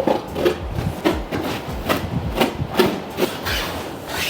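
A steady series of short knocks, about two a second.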